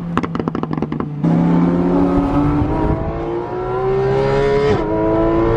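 Engine of a GT-R sports car heard from inside the cabin under hard acceleration. After about a second the engine note jumps louder and climbs steadily in pitch, drops sharply at an upshift near the end, then starts climbing again.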